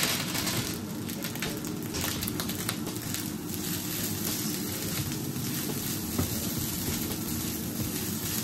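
Fried rice (nasi goreng) sizzling and crackling steadily in hot oil in a frying pan as it is stir-fried.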